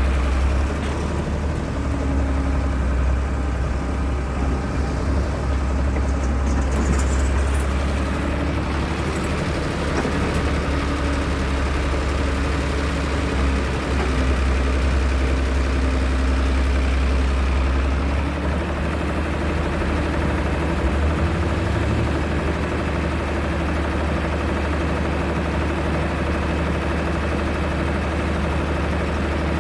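Heavy excavator's diesel engine running steadily with a deep low drone, its tone shifting slightly about eighteen seconds in.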